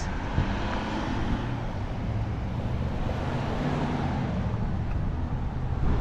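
A car driving past on the street, its tyre and engine noise swelling over the first second or two and fading away by about four seconds in.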